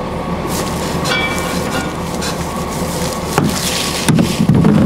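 Loose plastic sheeting on a round hay bale flapping and crackling in the wind, with wind rumbling on the microphone and a few sharp crackles near the end.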